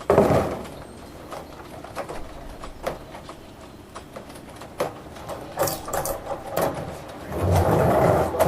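Hand-cranked winch on a chute hoist being worked: irregular sharp ratchet-like clicks, with a loud burst of noise at the start and another louder stretch of noise about seven seconds in.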